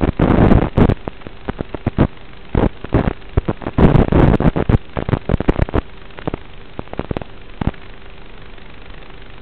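Static from an analog FPV video receiver: dense bursts of crackling and popping as the drone's video signal breaks up, first at the start and again about four seconds in, settling into a steady hiss with a faint steady tone and a few last pops.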